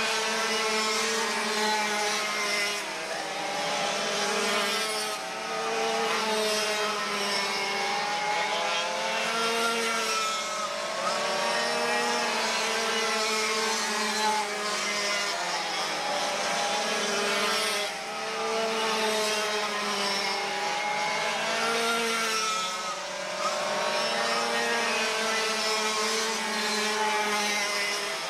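A pack of two-stroke twin-engine racing karts running at speed, several high buzzing engines overlapping. Their pitch rises and falls over and over as the karts come past.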